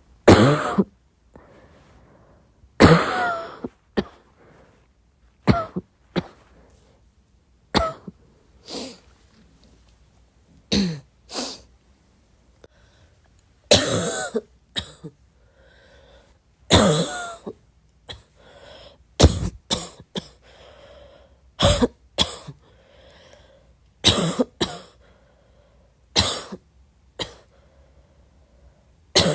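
A person coughing repeatedly in short single and double coughs, about every one to three seconds, some with a voiced, throaty edge, mixed with throat clearing.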